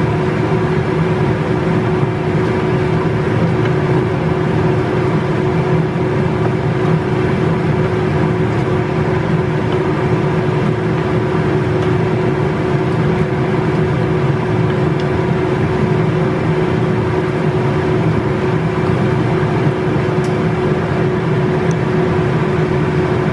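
Kitchen range-hood extractor fan running above a gas hob: a loud, even whir with a constant hum.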